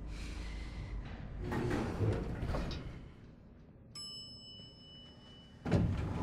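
Elevator arrival chime, a ding of several steady tones about four seconds in, followed near the end by the elevator doors sliding open. Earlier there is a brief muffled sound.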